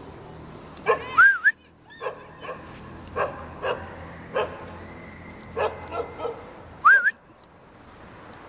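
Korean Jindo dog barking in a string of short single barks. Two loud rising whistle-like notes cut in, about a second in and again near the end.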